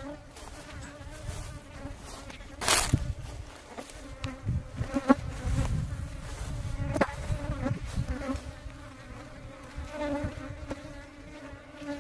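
Agitated honeybees buzzing close around the microphone, their pitch wavering as they fly in and out, the pitched buzz of a defensive colony the beekeeper calls pretty aggressive. A few sharp bumps break in, the loudest about three seconds in and another about seven seconds in.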